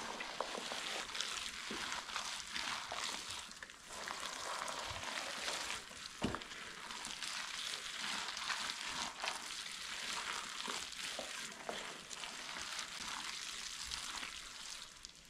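A rubber-gloved hand working kimchi seasoning paste, red chili flakes with chopped mustard greens and green onions, through a large plastic tub: a steady wet rustle and squish with small clicks.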